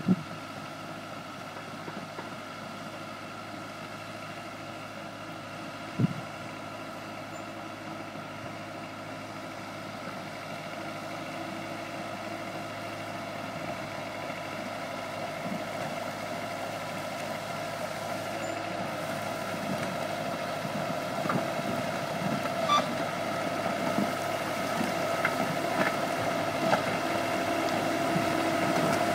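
Small Mitsubishi crawler bulldozer's diesel engine running steadily with a high steady whine, growing louder as the machine drives closer through the grass. A single sharp knock about six seconds in, and scattered short clicks later on.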